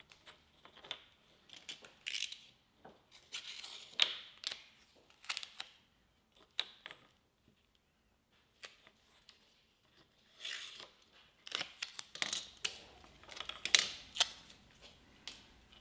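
Hand tool work on wood at a bench: irregular short scrapes, clicks and light knocks, with a pause of a few seconds midway.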